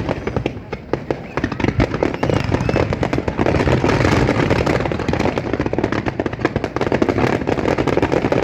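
Fireworks display going off: a dense, continuous rattle of cracks and pops over a heavy low rumble of bursts, growing busier about two seconds in.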